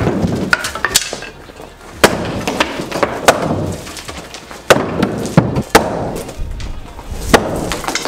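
A hammer striking old wooden shelf boards and 2x4s, knocking them loose from the wall posts, with about nine irregular sharp whacks and rattling of loosened wood and debris between them.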